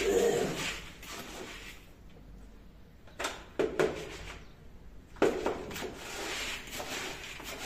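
Dry pigeon feed (mixed seeds, peas and grain) rattling and rustling as hands stir it in a plastic bucket. A few sharp knocks come a little after three seconds in as the bucket is lifted by its wire handle, then the stirring starts again.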